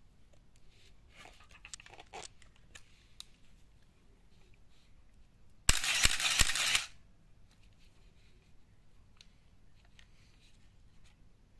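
Small clicks as the motor drive's mode dial is turned. About six seconds in, the Canon Motor Drive MA fires the AE-1 Program in a short continuous burst lasting about a second: three quick shutter-and-mirror clacks run together with the whir of the motorised film advance.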